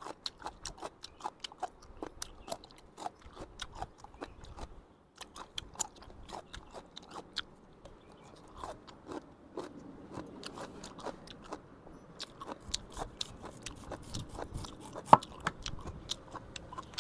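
Knife cutting through a pineapple, probably on a cutting board: a quick, uneven run of crunchy cuts and taps, several a second, with one sharper knock near the end.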